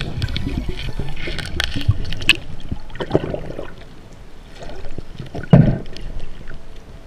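Underwater sound of a snorkeler moving over a seagrass bed: a low water rush with scattered clicks and knocks, and two louder short gushes about three and five and a half seconds in.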